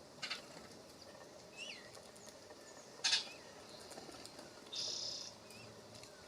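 Birds at a bird bath: a few short, thin chirps among sudden sharp noisy bursts, the loudest about three seconds in, and a half-second harsh, buzzy sound near five seconds.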